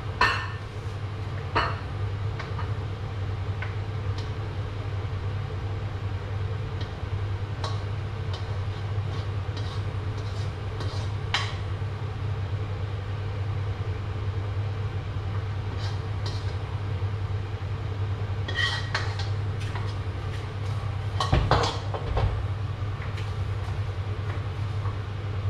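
Metal spatula scraping and clinking against a wok as the food is tipped out onto a plate. A handful of sharp clinks are spread out, the loudest near the start and again late on, over a steady low hum.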